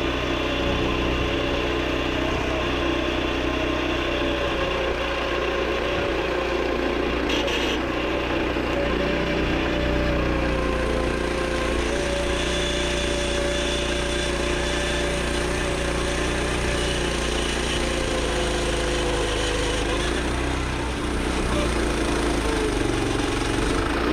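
Woodland Mills 122 bandsaw sawmill's gasoline engine running steadily, with a held whine that sags slightly in pitch a few times.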